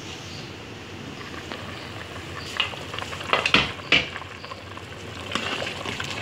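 Black chickpea curry bubbling and sizzling in an aluminium pressure cooker pot while being stirred, with a spoon knocking sharply against the pot several times about halfway through.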